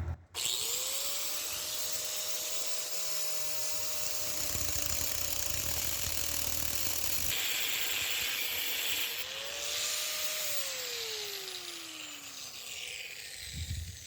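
Angle grinder with a cut-off wheel spinning up and cutting through the metal frame tube: a steady high whine over a loud hiss of cutting. Near the end the whine falls steadily in pitch as the disc spins down.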